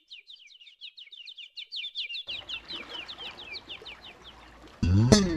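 A bird chirping in a fast, even series of short falling notes, several a second, with a soft rushing noise joining about halfway. Near the end the chirping stops and the music comes in loudly with a sweeping swell.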